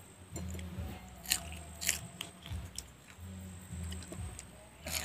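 A raw green chilli being bitten and chewed: sharp crunches about a second in and again near the end, with chewing between.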